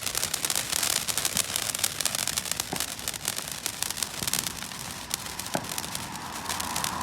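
Firecrackers going off in a dense, rapid crackle of many small bangs, with a steadier hiss joining in near the end.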